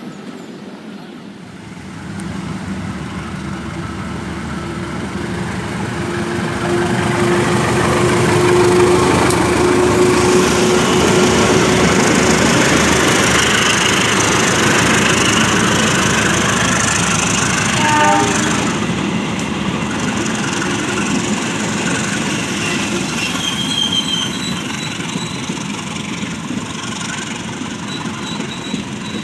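Passenger train rolling slowly past on the rails, its wheels clattering over the track. The noise swells to a peak in the middle and eases off toward the end, with a brief pitched squeal partway through.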